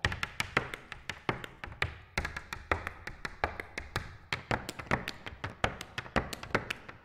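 Irish dance hard shoes striking a wooden stage in rapid, rhythmic step patterns, a run of sharp taps and clicks several to the second.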